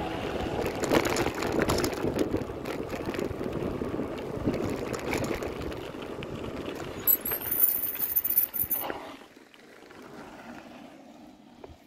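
Mountain bike tyres rolling over a dry dirt road, with wind on the microphone and small knocks and rattles from the bike. A brief high-pitched squeal comes about seven seconds in, and the noise drops much quieter after about nine seconds.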